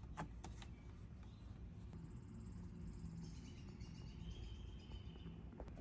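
Faint, steady low background rumble with a few soft clicks. A faint high wavering tone comes in the middle for about two seconds.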